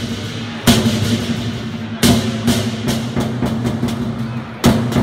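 Lion dance percussion ensemble playing: a rapid run of drum and cymbal strikes, with three heavy accented crashes about two seconds apart.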